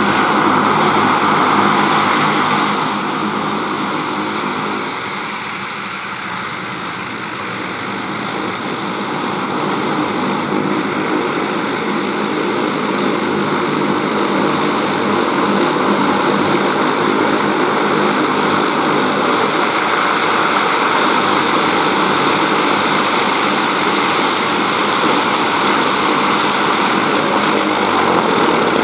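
Bombardier Q300 (Dash 8-300) turboprop's Pratt & Whitney PW123 engines and propellers running at low power on the ground: a steady propeller drone with a high turbine whine. It eases off in loudness for a few seconds near the start, then rises again.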